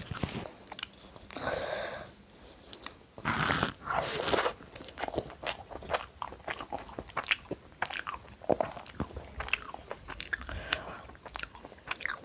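Close-miked chewing and biting while eating chicken biryani with salad, with crunching stretches and many small mouth clicks.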